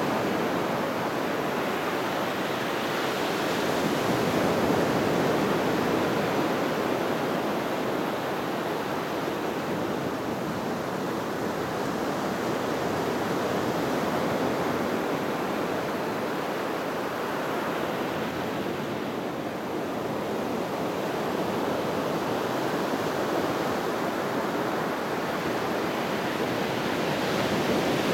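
Small ocean waves breaking and washing up a sandy beach: a continuous rushing surf that swells and eases gently.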